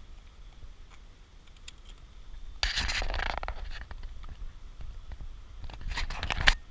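Scraping and rubbing noise in two bursts a few seconds apart, the second ending in a sharp knock; no engine is heard.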